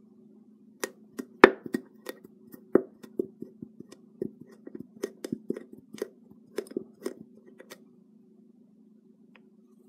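A string of sharp, irregular small clicks and taps, as of objects being handled, for about seven seconds, over a faint steady low hum.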